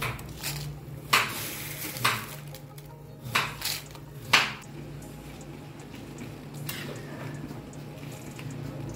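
Dried red chillies going into a wok of boiling water: a handful of short splashes between about one and four and a half seconds in, the loudest about four seconds in, over the steady sound of the boiling water.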